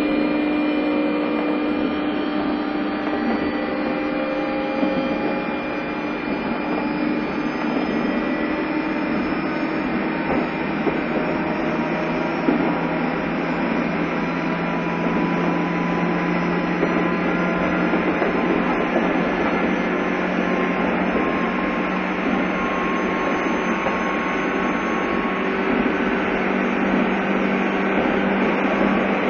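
Running sound inside a JR East 201 series electric commuter train: a steady rumble of wheels on rail with several humming tones from the traction equipment slowly drifting in pitch. This is the sound of the chopper-controlled motors as the train runs between stations.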